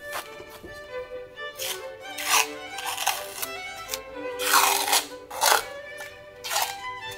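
Background music with a melody, over several short rasping tearing strokes: peel ply being pulled off cured epoxy fiberglass.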